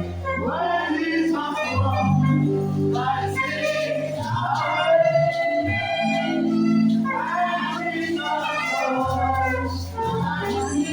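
Gospel music: singers with keyboard and bass accompaniment.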